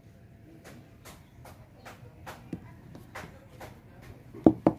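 Small metal air-rifle parts handled on a wooden tabletop: a string of faint clicks and taps, then two louder knocks close together near the end.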